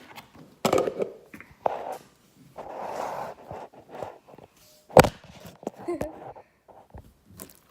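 Hands squishing and working a clear glue slime, giving irregular wet clicks, pops and squelches, the sharpest pop about five seconds in.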